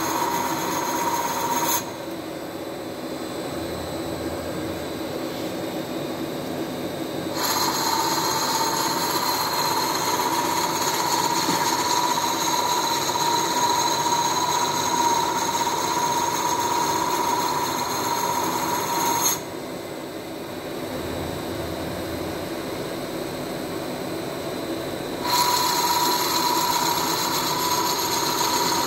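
CNC lathe turning a workpiece, the tool cutting with a steady whine and scraping. The cutting sound drops away about two seconds in, returns about seven seconds in, drops again near nineteen seconds and resumes near twenty-five. The machine keeps running quieter in between.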